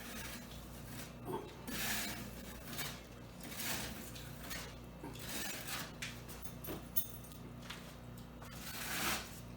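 Wide drywall knife skimming lightly over partly dried joint-compound splatter to knock down an orange-peel texture: a series of soft scraping swipes, roughly one a second, over a faint steady hum.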